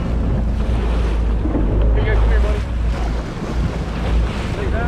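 Boat engine running with a steady low rumble under wind buffeting the microphone and water churning alongside the hull. Faint voices come through about two seconds in.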